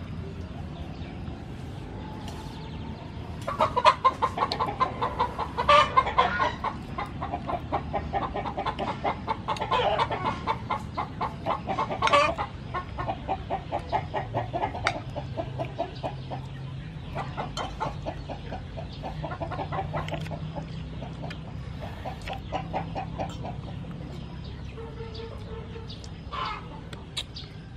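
Chickens clucking: long runs of rapid calls, loudest in the first half.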